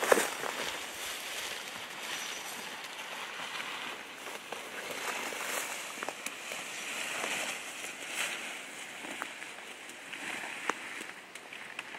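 Footsteps and brush swishing against clothing as people push through dense, waist-high undergrowth, in uneven surges, with a sharp snap right at the start and a lighter click near the end.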